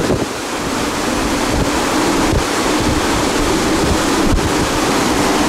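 Strong thunderstorm wind buffeting the microphone: a loud, steady rushing with gusty low rumbles.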